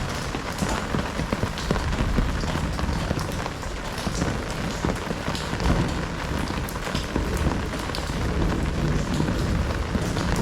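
Heavy rain falling steadily, with many individual drops pattering on hard surfaces.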